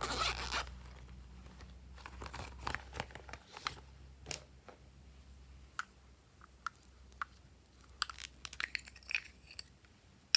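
Hands handling a silicone pop-it fidget toy and hard plastic lip-shaped lip gloss cases: a brief rubbing rustle at the start, then scattered light taps and clicks, with a quick run of clicks near the end as a case is opened.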